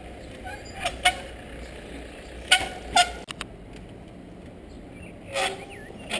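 Trials bike being hopped: a handful of sharp knocks as the wheels land, several with a brief high squeal, over a steady low hum of traffic.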